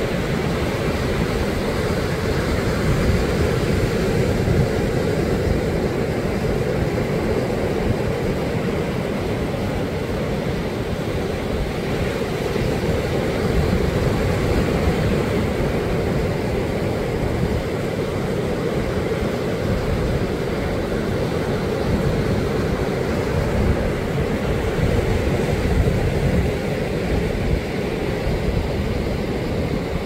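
Ocean surf breaking and washing up a sandy beach: a steady rumbling wash of waves that swells gently every several seconds.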